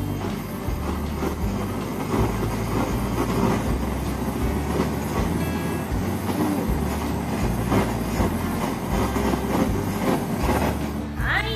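Handheld butane kitchen torch burning with a steady rushing hiss as its flame caramelizes the sugar on a drink's foam topping.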